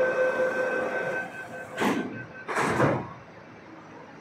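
Door-closing warning tone on an MTR East Rail Line platform, a steady two-pitch tone that stops about a second in. It is followed by two short sliding rushes as the train doors and the automatic platform gate doors slide shut.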